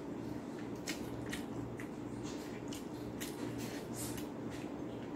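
Eating by hand: fingers mixing and squeezing oily rice in a bowl, making a string of brief, irregular soft wet squelches and ticks, over a steady low hum.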